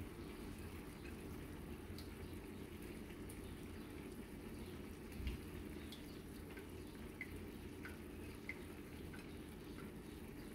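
Faint bubbling of red chile sauce heating in a skillet, with small pops here and there and a soft thump about five seconds in, over a low steady hum.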